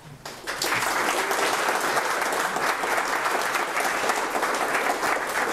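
Audience applauding: a room full of people clapping, starting about half a second in and holding steady.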